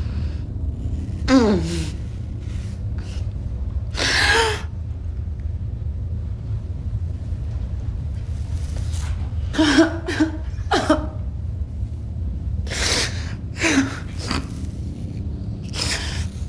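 A person gasping and whimpering in short, ragged breaths, several of them voiced, one sliding down in pitch about a second in. Under the breaths runs a steady low rumble.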